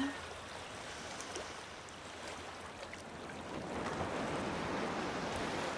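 Sea waves breaking and washing against rocks, a steady rush of surf that swells louder about halfway through as a wave comes in.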